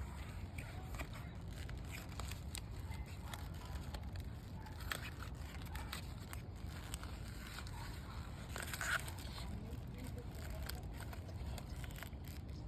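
Fragrance packaging being unboxed: scattered crinkling, tearing and light clicks of paper and cardboard, with a louder crackle about nine seconds in, over a steady low hum.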